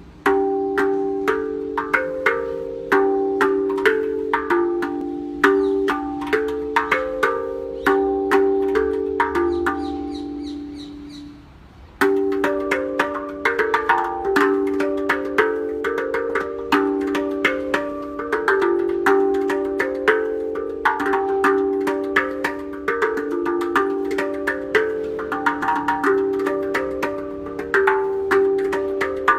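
Steel tongue drum tuned to D minor (Pantico 8, eight notes D E F G A Bb C D) played with the fingertips: a flowing run of struck notes that ring on and overlap. About ten seconds in, the playing stops and the last notes fade for about two seconds before it starts again.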